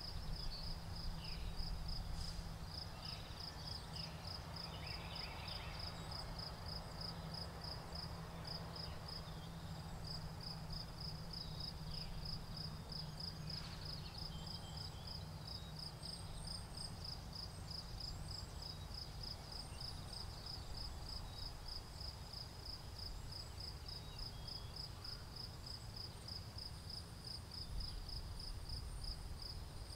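Crickets chirping in a steady, rapid, even pulse, with a few short bird calls in the first half over a low rumble.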